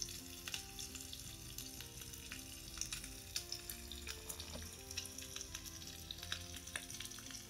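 Frying sound effect for a toy kitchen stove: a steady sizzle with scattered crackles and pops, over soft background music.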